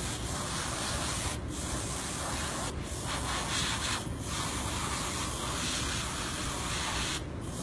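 Airbrush spraying paint onto a mohair toy mouse: a steady hiss of air and paint that stops briefly four times as the trigger is let off and pressed again.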